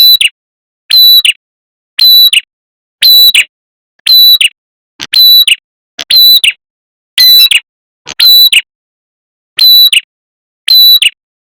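Repeated call of a red-headed prenjak played as a bird-luring recording: about eleven short, loud notes, each held on one high pitch, evenly spaced about a second apart with silence between.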